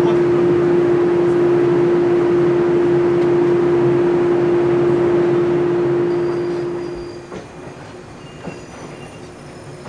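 A loud, steady humming tone from the standing JR 183-series electric train's equipment. About seven seconds in it fades away, leaving a faint rumble with thin high squeals as a second 183-series train rolls slowly in.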